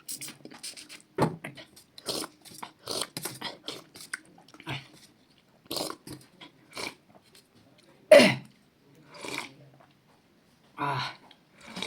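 Close-up eating sounds: chewing, biting and lip-smacking as short, irregular clicks and smacks. About eight seconds in comes one louder brief sound that falls in pitch, like a short vocal sound.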